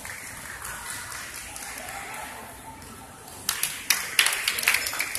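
Murmur of a crowd in a large sports hall, then hand clapping and applause breaking out about three and a half seconds in, as a gymnast finishes his routine.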